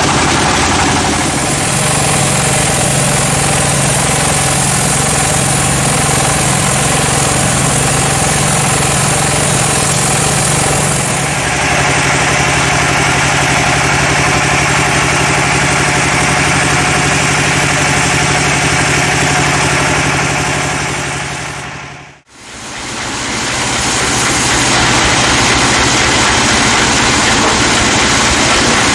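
Band sawmill running with a steady motor hum as the blade saws through a teak log. The tone changes about a third of the way through; the sound then dips out briefly near the two-thirds mark and comes back as the same steady machine hum.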